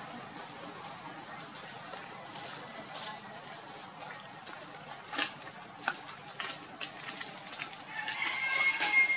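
Steady high-pitched insect drone, with a few sharp clicks midway and, near the end, a brief high-pitched animal call, the loudest sound.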